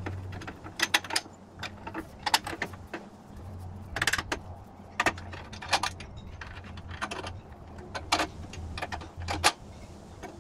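Steel front suspension control arms being fitted into the brackets of a tubular steel kit-car frame: irregular metallic clanks and clicks, a few sharper knocks among them, over a low steady hum.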